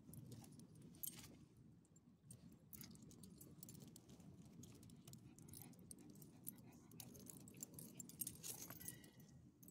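Faint jingling of a dog's metal collar tags and leash clip, in scattered light clinks as the dog moves and is handled on its leash.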